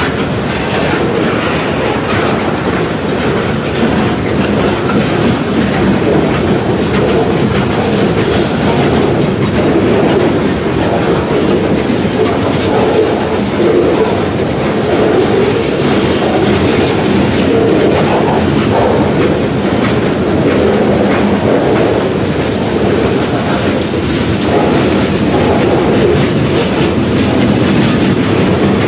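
Boxcars of Pan Am Railways freight train POAY rolling steadily past, their steel wheels running on the rails.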